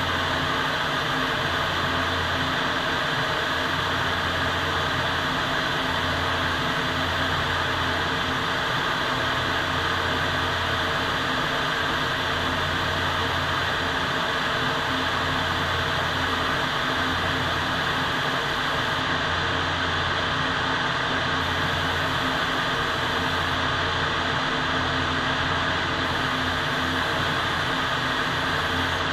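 Steady rushing noise of a paint spray booth at work: the booth's ventilation fans, with the air hiss of a compressed-air paint spray gun. The highest part of the hiss drops away twice for a couple of seconds in the last third.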